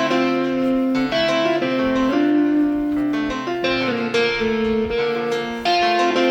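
Background music: piano-led instrumental, playing a steady sequence of chords.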